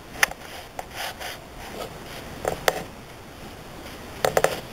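A few light, scattered knocks and clicks of food and utensils being handled at a barbecue grill, with faint rubbing between them.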